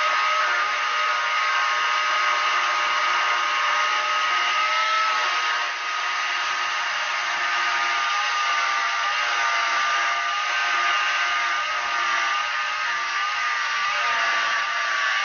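A jigsaw mounted under a plywood table runs steadily while its blade cuts a curve in a wooden board: a steady high motor whine with the blade's rasp through the wood, dipping briefly about six seconds in.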